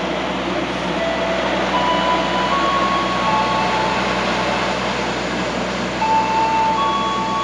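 Passenger train carriages rolling slowly past: a steady rumble of wheels on rail, with high squeals coming and going at shifting pitch, loudest about six seconds in.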